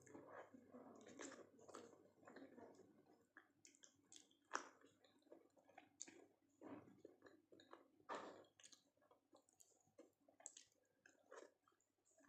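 Faint close-up chewing of soft food (dal, rice and noodles), with wet mouth sounds and scattered sharp clicks at an irregular pace.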